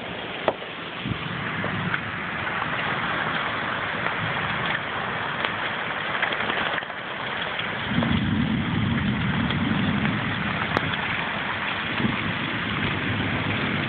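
Marble-size hail pelting down on a patio and yard: a dense, steady clatter with sharper ticks of single stones striking. A deeper rumble joins about eight seconds in.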